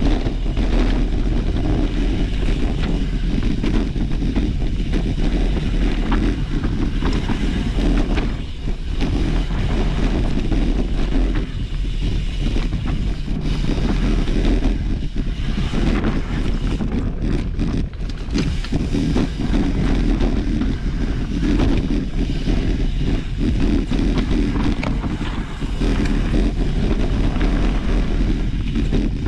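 Wind buffeting the microphone of a mountain bike ride over a rough trail, with a constant low rumble and the clatter and knocks of the bike bouncing over roots and rocks.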